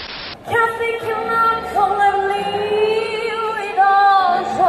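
A woman singing live into a microphone through a stage PA, in long held notes that waver and bend in pitch. A short burst of static hiss opens it, and the singing comes in after about half a second.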